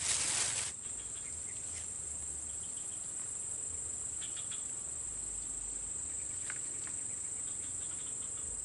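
Insects trilling in a steady, high-pitched chorus. A short burst of noise comes in the first second, with a few faint clicks later.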